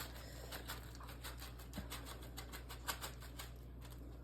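Bacon bits shaken out of a container onto a plate of fries: a faint, irregular run of light ticks and taps.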